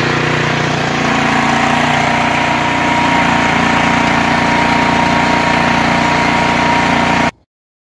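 Cub Cadet Stage 3 snow thrower's 420cc single-cylinder engine running steadily after its oil change. The sound cuts off abruptly near the end.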